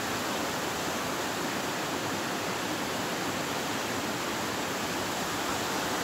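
Mountain stream rushing over rocks: a steady, even roar of white water.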